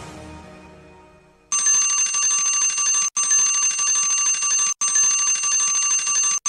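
Theme music fading out, then about a second and a half in, as the online stopwatch timer hits zero, its alarm goes off: a loud, steady electric bell ring, repeating in stretches of about a second and a half with brief breaks.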